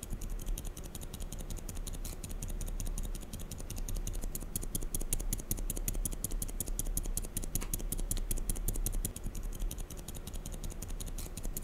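Fast typing on mechanical keyboard switches: a dense, steady stream of key clicks. It is a sound comparison of lubricated switches against unlubricated ones.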